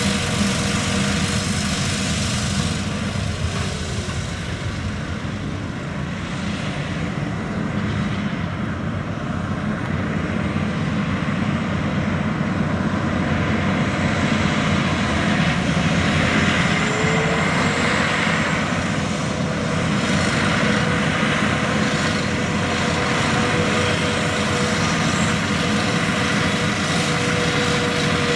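John Deere 9520RX tracked tractor's 13.5-litre PowerTech diesel engine running steadily under load as it pulls a loaded fertilizer spreader, with a steady rushing hiss over it. It grows louder after the first few seconds as the tractor draws nearer.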